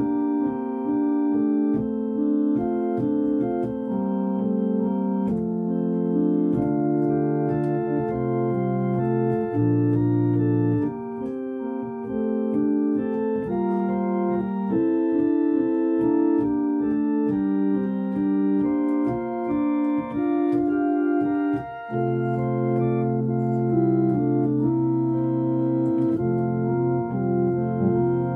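Organ music: slow, held chords that change every second or so over long, sustained bass notes.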